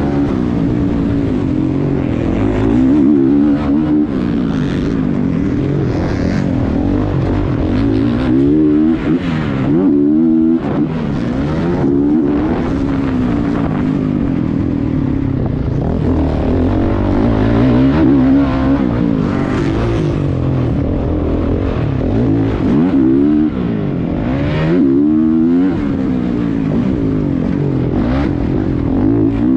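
Dirt bike engine heard from on board while riding a motocross track, revving up and dropping off again and again as the throttle is opened and closed through turns and jumps.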